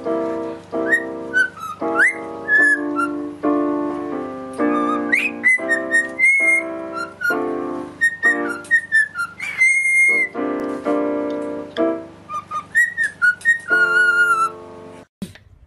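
A cockatiel whistling a tune in short notes, many of them swooping up at the start, along with an electronic keyboard played in chords. Both stop suddenly about a second before the end.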